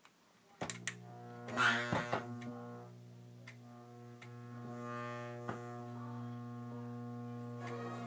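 EU 6201 VHF relay receiver switched on with a click, then at once a steady low hum with a stack of overtones. The receiver puts out this hum as a fault. A few crackles come in over the hum in the first couple of seconds.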